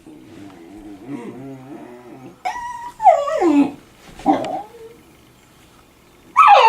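Dachshund grumbling low for about two seconds, then giving high whining cries three times, the first held and then falling in pitch, as he pesters a cat to play ball.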